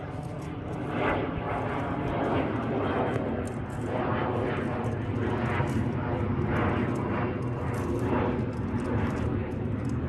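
A long stick scraping and rattling against a bird's nest of twigs packed inside a dryer exhaust vent, in repeated strokes with sharp clicks, over a steady low rumble.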